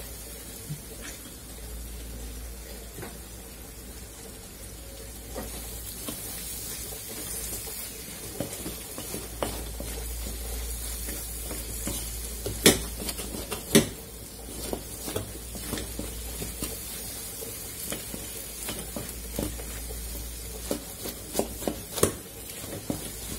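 Onion and spice masala sizzling in oil in a wide metal karahi while a spatula stirs and scrapes through it. Sharp knocks of the spatula against the pan stand out, loudest a little past the middle and near the end.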